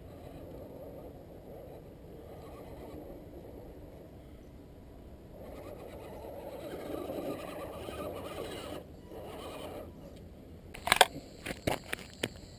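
Electric motor and gears of a 1/10-scale Axial SCX10 Honcho RC crawler whining as it climbs a rocky slope, louder from about halfway as it comes close. Near the end, a quick run of sharp knocks is the loudest sound.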